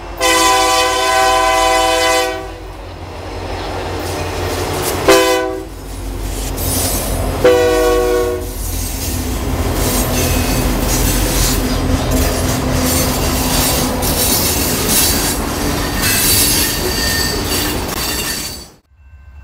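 Union Pacific diesel locomotive's air horn sounding a chord of several notes: a long blast, a short blast about five seconds in, and another blast about seven and a half seconds in. The freight train of refrigerated boxcars then rolls by with steady wheel noise and a high squeal from the wheels.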